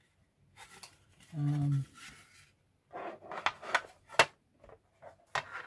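Large plastic model-kit flight-deck panels being handled and laid against each other on a cutting mat: a quick run of clicks and taps in the second half, the sharpest about four seconds in.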